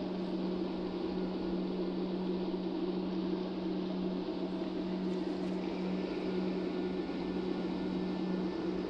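A steady low hum over a soft hiss, even in level with no distinct events.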